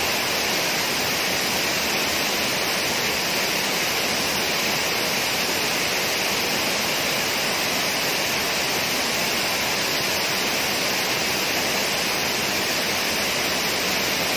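Water pouring over a low weir in a broad cascade into the pool below: a steady, unbroken rush.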